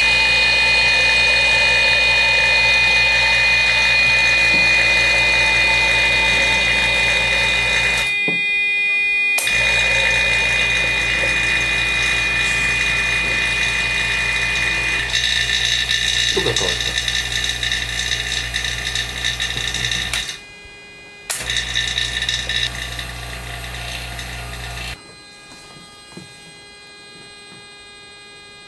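A steady mechanical buzz with a whining edge, picked up by a microphone inside a glass bell jar that is being pumped down toward a vacuum. It cuts out briefly twice and, near the end, suddenly becomes much fainter as the pressure falls below about 50 hPa and the thinning air no longer carries the sound well.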